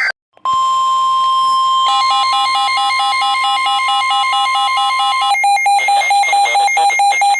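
Emergency alert tones for a severe-weather warning: after a brief burst and a short gap, a steady single alert tone sounds. About two seconds in, a rapidly pulsing beeping alarm joins it, and the beeping carries on alone after the steady tone stops about five seconds in.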